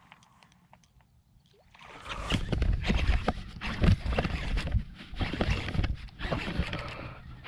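Water splashing and sloshing with many sharp clicks and knocks, starting suddenly about two seconds in, as a hooked catfish thrashes at the surface on a topwater lure.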